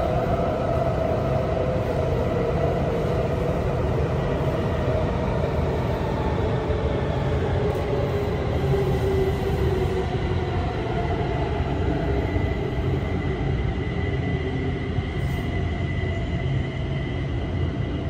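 Kaohsiung MRT Red Line metro train heard from inside the passenger car running through the tunnel: a steady rumble of wheels on rail under a motor whine that slowly falls in pitch as the train slows for the station.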